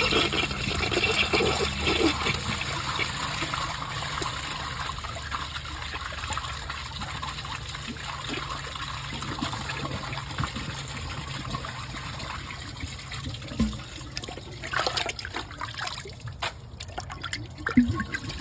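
1981 Briggs Abington toilet flushing with four socks in the bowl: a loud rush of water at the start that settles into a steady run of water through the bowl and tank. A few knocks come near the end.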